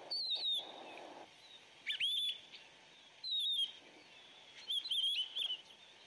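Pine grosbeaks calling: four short phrases of clear whistled notes, some sliding down in pitch and some wavering.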